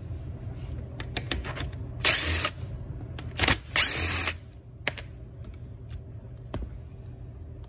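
Cordless drill/driver with a long extension bit spinning screws out of a chainsaw's handle mount in two short runs, about two seconds and four seconds in, with light clicks of the bit and loosened parts between them.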